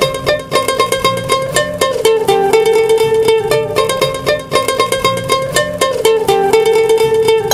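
Background music: a bright, quick plucked-string tune in the manner of a ukulele or mandolin.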